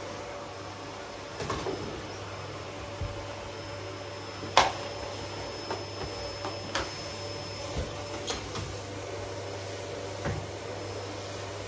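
Canister vacuum cleaner running with a steady hum, with several sharp knocks over it as it is worked across the floor; the loudest knock comes about four and a half seconds in.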